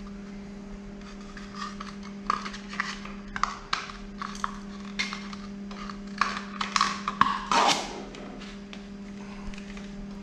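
Light clicks, taps and scrapes of a carbon fiber fork guard being handled and twisted onto a motorcycle's lower fork leg. The sounds are irregular and loudest near the end.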